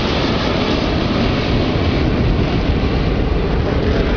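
Steady, loud jet engine noise of an Airbus A320 airliner passing low overhead.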